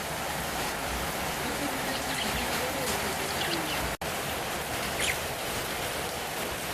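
Steady rain hiss with budgies chirping faintly now and then, and a momentary break about four seconds in.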